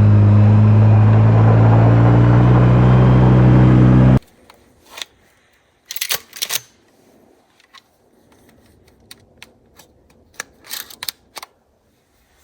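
Polaris RZR side-by-side engine running, its pitch climbing slightly, then cut off suddenly about four seconds in. After that, scattered light clicks and rustles over quiet.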